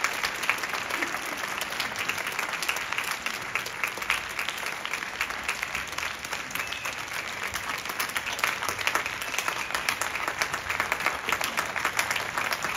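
Sustained applause from a large audience, many hands clapping steadily without a break.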